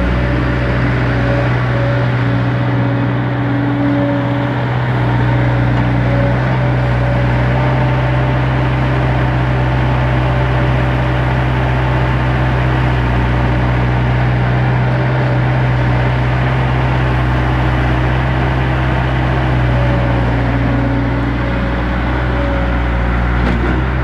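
An engine running steadily at a constant speed, a low, even drone with faint steady tones above it.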